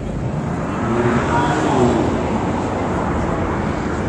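City street traffic: a car passing close by, swelling to its loudest about two seconds in.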